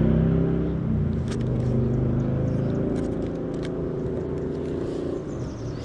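An engine running steadily at low revs, with a few light clicks and taps on top.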